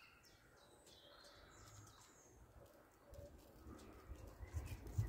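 Faint birds chirping in the background, with a few soft low bumps of handling toward the end as chicken and onion pieces are pushed onto a wooden skewer.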